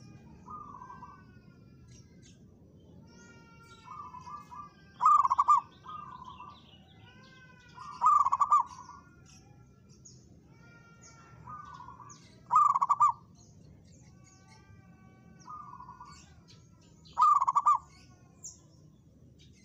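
Zebra dove (perkutut) cooing: a loud coo phrase about every four seconds, four times, with softer coos in between. Small birds chirp thinly in the background.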